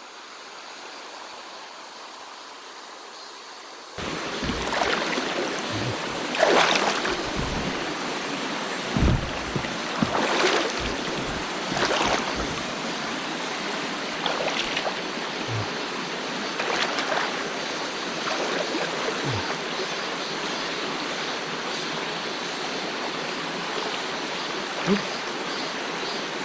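Valley stream water rushing and splashing over rocks, a steady flow. It jumps suddenly louder about four seconds in, with occasional brief splashes after that.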